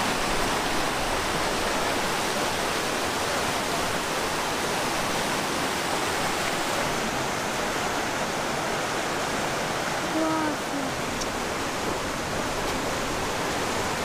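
Fast mountain river rushing over rocks, a steady noise of running water.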